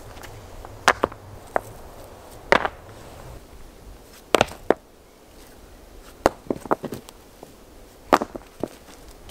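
Stones knocking on stone as rocks are lifted and set onto a pile to build a rock wall fire reflector: a dozen or so sharp knocks in small clusters.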